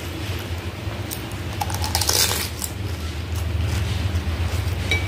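A crisp fuchka (panipuri) shell dipped into spiced water in a glass bowl and eaten, with a crackly crunch about two seconds in and small clinks and drips, over a steady low hum.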